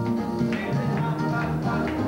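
Live band playing an upbeat soca groove: electric bass guitar and keyboards over a steady beat.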